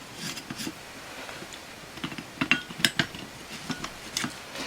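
Small metal clicks and clinks of countersunk screws being handled and fitted into a flywheel casting against a faceplate's threaded inserts. The sharpest clinks come a little past halfway and again near the end.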